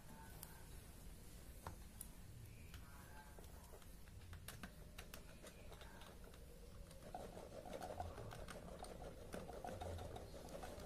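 Soaked water gel balls pattering into a gel blaster's plastic magazine as they are poured from a bottle: a faint run of small clicks that thickens into a steadier rattle about seven seconds in.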